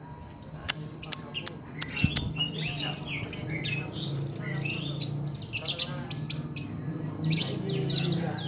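Young lovebird chattering: a rapid run of short, high chirps and squeaky calls, a juvenile still learning its song, over a steady low hum.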